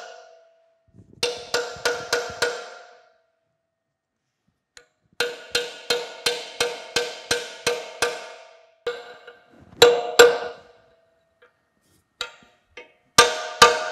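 Steel hammer striking a punch to drive a rust-stuck bearing out of a Chattanooga No. 11 cane mill's cast-iron frame. The blows come in quick runs of about three a second with pauses between, each blow ringing metallically; a few heavier single blows land in the second half.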